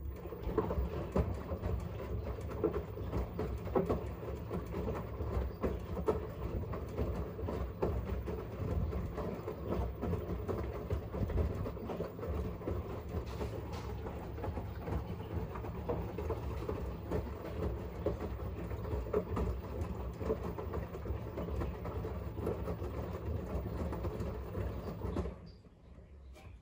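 LG 7 kg front-loading washing machine's drum turning during a rinse: wet laundry tumbling and water sloshing over the motor's low rumble, with irregular soft knocks. The drum stops about 25 seconds in.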